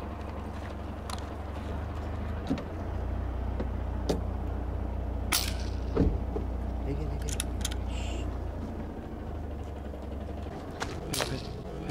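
Vehicle engine idling steadily, with scattered sharp clicks and knocks over it; the loudest is a sharp pop about halfway through.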